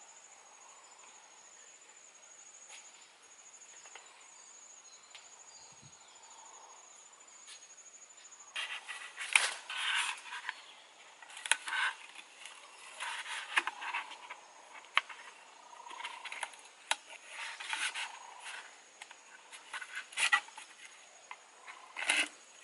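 Bamboo poles scraping, creaking and knocking in irregular bursts, with sharp clicks, as a bamboo crosspiece is lashed to an upright pole with cord. Before this, for the first eight seconds or so, there is only a faint, steady high insect trill.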